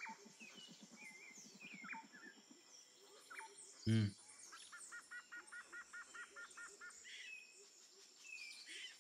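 Outdoor birds chirping in scattered short calls, with a rapid run of repeated two-note chirps, about six a second, for a couple of seconds past the middle. A brief low vocal sound from a person, the loudest thing here, comes about four seconds in.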